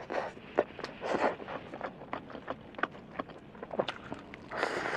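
Close-miked crunching and chewing of crispy breaded fried chicken: irregular crackles and wet mouth clicks, with louder crunchy bites about a second in and near the end.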